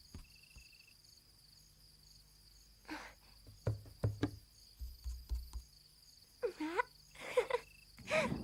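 Cartoon soundtrack with a steady background of cricket chirping, a few soft knocks, and short sliding musical or whistle-like notes in the last couple of seconds.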